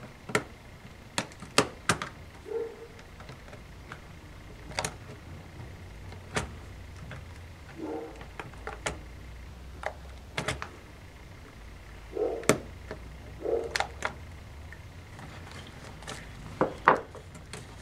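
Plastic pry tool working along the edge of a laptop keyboard to free it from the case, giving irregular sharp plastic clicks and snaps, scattered through the whole stretch.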